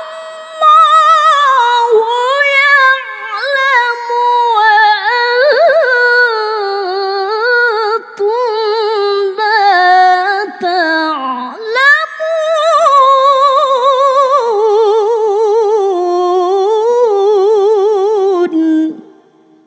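A woman chanting a Quran recitation in the melodic tilawah style: one long, high phrase with wavering ornamented vibrato and a couple of short breaks, ending shortly before the close.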